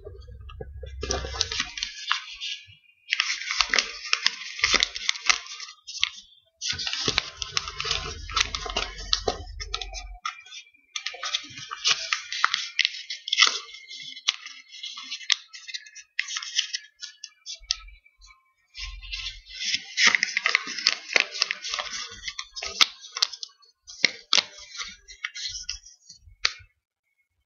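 A sheet of paper crinkling and rustling as it is folded and opened out by hand into a paper boat, in crackly stretches of a few seconds with short pauses between them.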